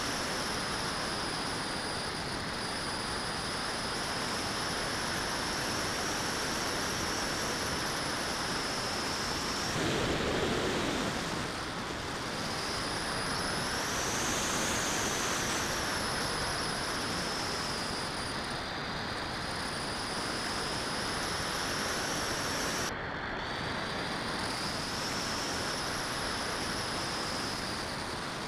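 Steady rush of airflow over the onboard camera of a 3.2 m model glider in flight, with a thin high whistle above it that drifts slightly in pitch and drops out for a couple of seconds about ten seconds in.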